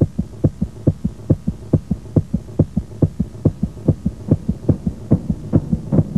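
Heartbeat sound effect: a fast, steady run of low thumps, about five a second.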